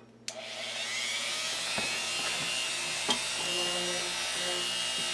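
Dremel rotary tool fitted with a round grinding-stone bit, switched on shortly after the start: the motor spins up in a rising whine, then runs at a steady high whine.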